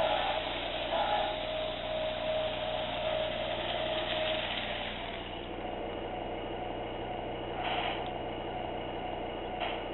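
Lionel Missile Launch Set model train running on its track, the locomotive's motor and wheels on the rails mixed with the sound car's diesel-engine sound. The noise eases off about halfway through and a steady engine hum carries on.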